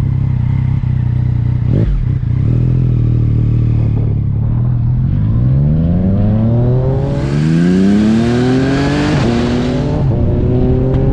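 Yamaha MT-09's three-cylinder engine running steadily, then accelerating hard about halfway through. Its pitch climbs, drops back at an upshift, and climbs again, with a rush of wind noise as speed builds.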